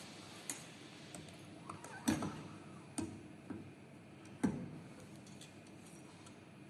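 A handful of sharp metal clicks and knocks, the loudest about two and four and a half seconds in, as the EOT oscillating knife head is fitted onto the cutting machine's tool holder.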